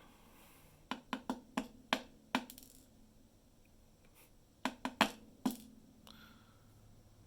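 Small metal parts of a dimple lock clicking and tapping together as the lock is taken apart: a quick run of about six sharp clicks, a pause, then four more.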